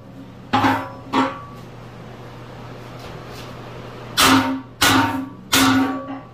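Heavy hammer blows on the bent steel of a backhoe bucket, five ringing metallic strikes: two in quick succession, a pause, then three more, to straighten the bent steel. A steady low hum runs underneath.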